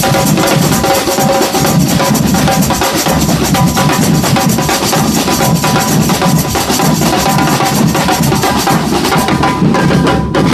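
Community samba percussion band playing a loud, dense, steady groove of bass drums and snare drums.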